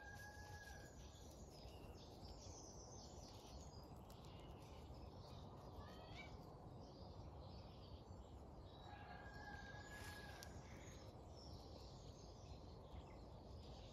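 Near-silent outdoor ambience with faint bird chirps scattered through it. Twice, at the start and again about nine seconds in, a faint held note lasts about a second.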